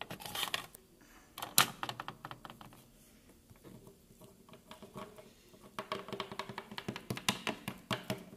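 Toys being handled on a plastic toy dollhouse: a run of light plastic clicks and taps, with one sharper knock about one and a half seconds in and a quicker patter of small clicks over the last few seconds.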